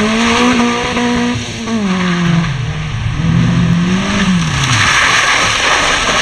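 Suzuki Swift rally car engine revving hard, then dropping back twice as the driver lifts off and accelerates again between slalom gates. Over it runs a loud rushing noise, which grows near the end as the engine note falls away.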